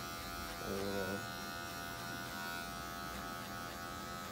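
Electric hair clippers with a comb guard running with a steady buzz, worked over the short hair at the back of the head and neck.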